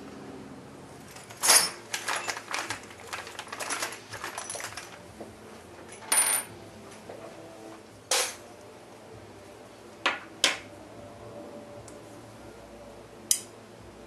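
Small metal parts clicking and clacking: strong neodymium magnets snapping together and a short brass tube being handled on a wooden tabletop. A quick flurry of clacks comes in the first few seconds, then single sharp clicks every couple of seconds.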